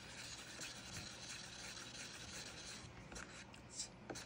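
Faint scraping and rubbing of a thin wooden stir stick against the inside of a small cup as tinted polyurethane resin is mixed, with a few light ticks about three seconds in.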